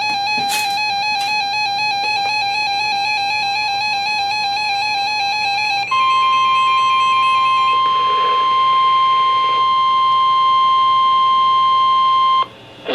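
Music with a long held, wavering note. About six seconds in, it gives way to the steady single-pitch NOAA Weather Radio warning alarm tone (1050 Hz), which holds for about six and a half seconds and cuts off near the end, signalling that a warning broadcast follows.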